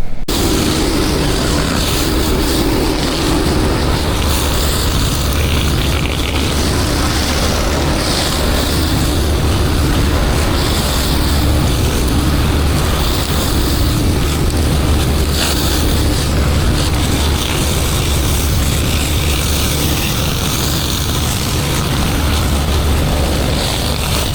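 Engine-driven pressure washer running steadily, with the hiss of its high-pressure water spray.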